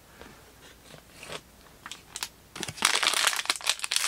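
The wrapper of a 2023 Panini Rookies and Stars football card value pack crinkling loudly as it is gripped and torn open. The crinkling starts about three seconds in, after a few faint ticks.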